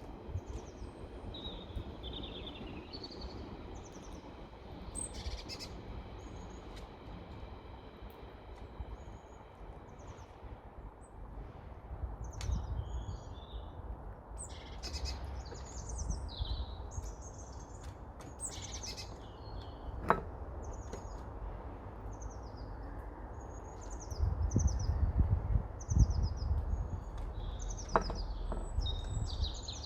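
Small wild birds chirping and calling in many short, separate notes, over a steady low rumble that grows louder near the end, with two sharp clicks.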